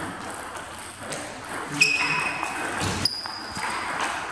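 Table tennis balls clicking on hard surfaces. Two of the clicks, about two and three seconds in, are each followed by a short, high ringing tone.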